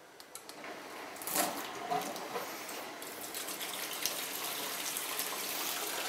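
Water from a Miele WT945 washer-dryer's drain hose gushing into a plastic bucket, starting about a second in and slowly growing louder. The machine's drain pump is emptying old water that has stood in it a long time.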